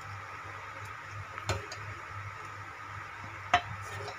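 Steel ladle stirring thick kadhi in a metal pot, knocking against the pot twice, the second knock near the end the louder, over a steady background hum.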